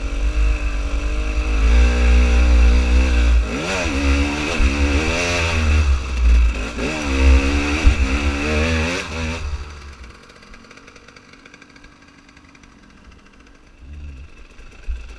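Dirt bike engine revving up and down repeatedly as it is ridden, with a heavy low rumble underneath. About ten seconds in the engine sound drops away sharply to a much quieter level.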